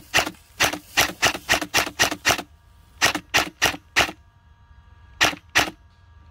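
Airsoft rifle firing single shots in quick succession, each a sharp clack. About eight shots come in the first two and a half seconds, four more follow after a short pause, and two more come about five seconds in.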